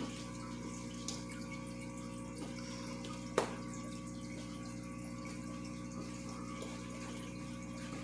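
Fish tank's pump running with a steady hum under the trickle of bubbling water, with one sharp click a little over three seconds in.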